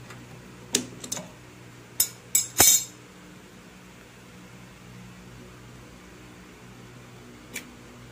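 Sharp metal clinks and clanks of a socket and flywheel puller working the magneto flywheel (rotor) off a Honda EX5's crankshaft. There is a quick cluster in the first three seconds, the loudest near the third second, and one more clink near the end, over a steady low hum.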